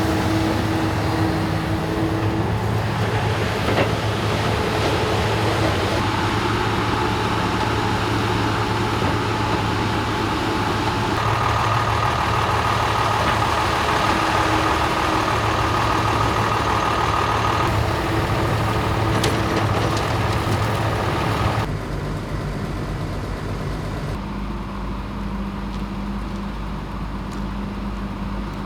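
Heavy diesel road-construction machinery and trucks running steadily, with a steady whine in the middle and the sound changing abruptly twice about three-quarters of the way through.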